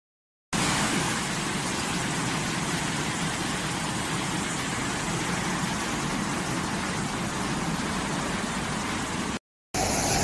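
Muddy floodwater rushing through a street as a steady, even noise that starts half a second in. It cuts out briefly near the end and comes back as more rushing floodwater.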